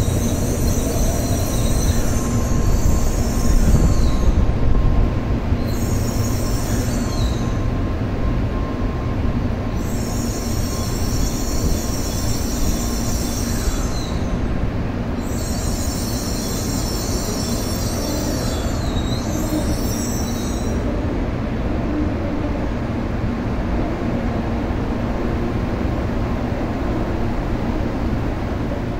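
N700A-series Shinkansen train moving slowly along the platform as it pulls out of the station, a steady low rumble. A high-pitched noise comes and goes four times in the first twenty seconds.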